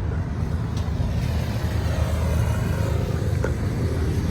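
Pickup truck engine running with a steady low rumble.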